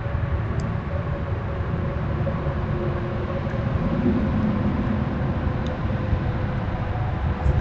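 Steady low rumble of distant motor traffic, with a slight swell about halfway through.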